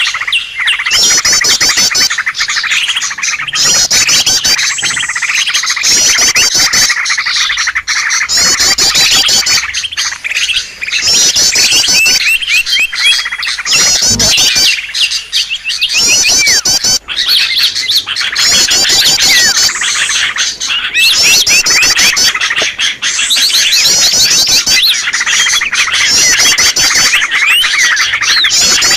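Bird-lure recording: a dense mix of many small songbirds chirping and twittering together, with a high, rapid trill coming back every couple of seconds over unbroken chatter.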